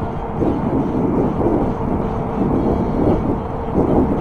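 Wind buffeting the microphone while riding an e-bike, over a steady whine from the hub motor, with swells of rushing noise.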